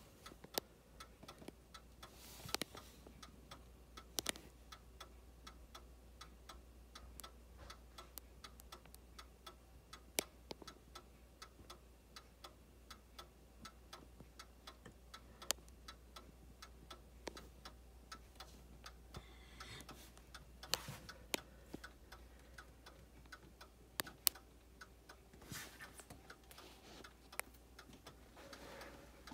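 Ansonia crystal regulator clock, about 1905, ticking steadily from its brass movement as the pendulum swings, with a few louder clicks now and then.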